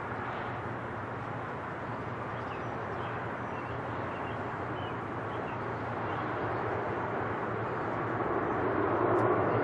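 Airbus A330's twin Rolls-Royce Trent 700 jet engines on landing approach: a steady rushing drone that grows louder over the last few seconds as the airliner comes closer.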